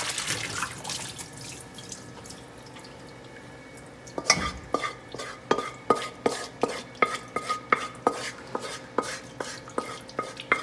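Cooked rice noodles and their water tipped from a pan into a stainless steel basin with a splash. Then a hand swishes the noodles in cold water to chill them. From about four seconds in come regular knocks against the basin, about three a second, each with a short metallic ring.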